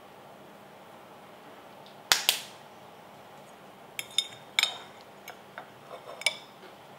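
A fork clinking several times against a ceramic bowl of noodles, each clink with a short ring, after two sharp clicks close together about two seconds in.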